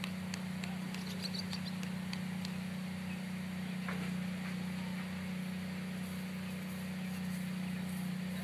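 A steady low machine hum that does not change, with faint high chirps and clicks over it.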